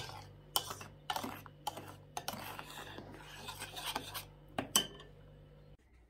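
Metal spoon stirring a thick batter in a glass bowl: the spoon clinks against the glass about twice a second, then scrapes and stirs for a couple of seconds, with two more clinks before it stops near the end.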